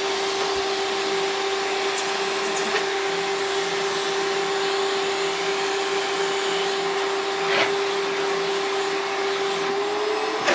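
Canister vacuum cleaner running steadily, a steady hum over an airy hiss, with a few light clicks. Its pitch rises slightly near the end.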